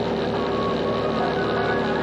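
Background music with sustained, held tones and a steady level.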